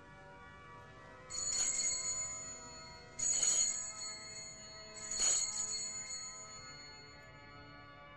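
Altar bells (sanctus bells) rung three times at the elevation of the consecrated host, each bright jangling peal lingering and fading slowly before the next.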